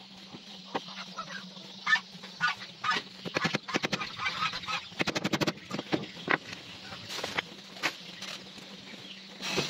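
Wooden planks knocking and clattering as they are handled and fitted on a wooden boat's bow, with sharp knocks and two quick runs of rapid clicks. Poultry honk in the background.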